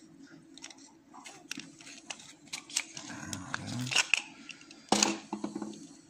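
Small metallic clicks and taps from a picked VRV10 euro cylinder lock being turned over and handled in the fingers, with a louder knock about five seconds in.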